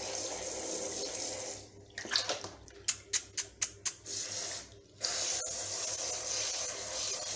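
Handheld shower head spraying water steadily onto a rabbit's coat and into a basin of water, wetting the rabbit before shampooing. About two seconds in, the steady spray gives way to a run of short splashes for about three seconds, then steadies again.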